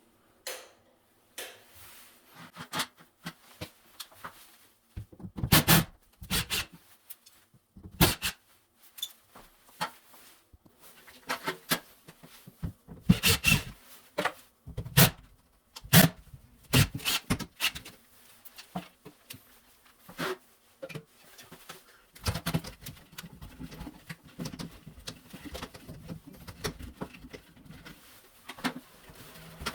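Irregular clicks, knocks and rattles of hands-on fixture work, with several louder knocks in the first half. The sound becomes a denser run of small handling noises in the last third.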